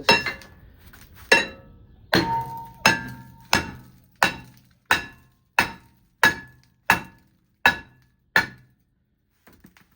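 Hammer striking a rusted rear brake rotor to knock it loose from the hub: about a dozen sharp metallic blows with a short ring, roughly one every 0.7 seconds, stopping about a second and a half before the end.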